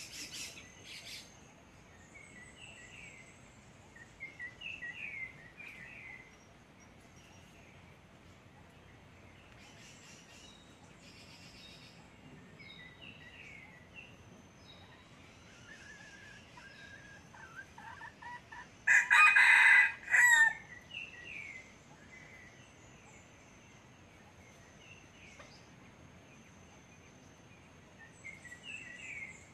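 A red junglefowl rooster crows once, about two-thirds of the way in: a short crow that cuts off sharply, with a brief last note. Faint chirps of small birds come and go around it.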